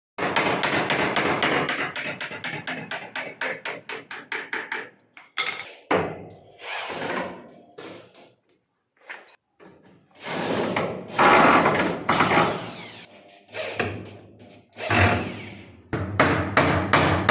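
Rapid hammering on wood, about five blows a second, for the first few seconds and again near the end, with longer noisy stretches of tool work and brief pauses in between.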